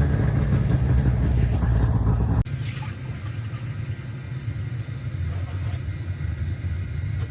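A Tucker Sno-Cat's Isuzu turbo-diesel engine running as it drives, a loud low rumble, for about two and a half seconds. It then cuts off abruptly to a quieter steady low hum.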